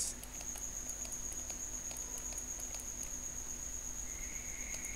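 Steady background noise of a voice-over recording: a high-pitched electrical whine and a low hum over light hiss, with a second, lower whine joining about four seconds in and faint scattered ticks.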